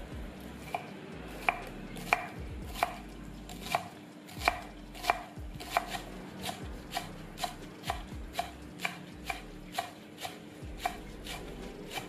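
Large kitchen knife chopping green onions on a wooden cutting board: steady knocks of the blade hitting the board, about two a second.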